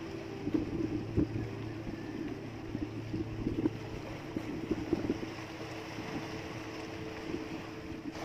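A small engine hums steadily on the outrigger boat, with scattered knocks from the fishermen handling the line and bamboo frame as they haul in a hooked yellowfin tuna.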